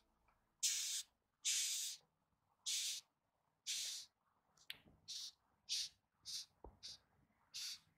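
Short, dry hissing bursts from a threatened insect, about one a second at first, then shorter and quicker toward the end, with a single sharp tick among them.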